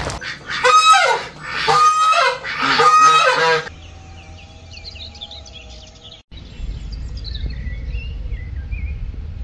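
Domestic ducks quacking, three loud honking calls in quick succession in the first few seconds. After that, faint high chirps over a low rumble.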